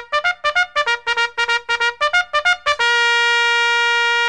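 Intro fanfare music on a trumpet-like brass sound: a run of quick short notes, about four a second, then one long held note from nearly three seconds in.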